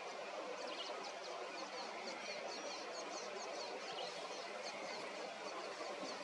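A small bird twittering: a quick run of high, thin chirps that begins about half a second in and fades near the end, over a steady outdoor hiss.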